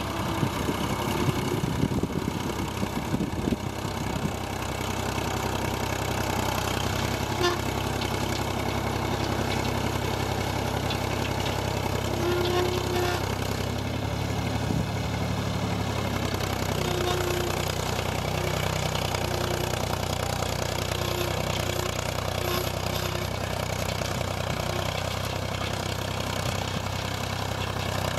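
Vintage tractor engine running steadily under load as it pulls a mounted plough through the soil.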